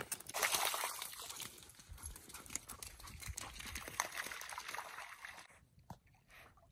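A dog's noises, breathy and irregular, that cut off suddenly about five and a half seconds in.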